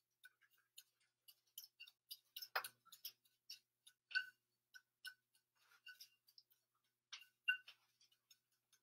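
Metal spoon tapping and scraping in a small nonstick saucepan as toasted panko breadcrumbs are scooped out and sprinkled: faint, irregular light clicks, a few a second, the loudest about two and a half and four seconds in.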